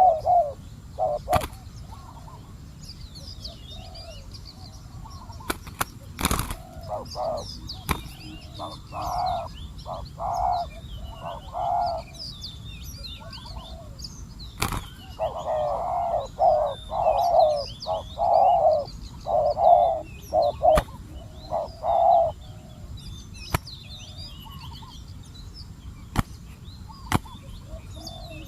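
Spotted doves cooing in runs of repeated low coos, heaviest through the middle, with smaller birds chirping higher above. Several sharp clicks break in at intervals.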